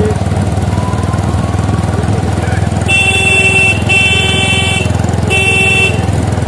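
A motorcycle engine running steadily, with a vehicle horn honking three times in the second half, each honk under a second long.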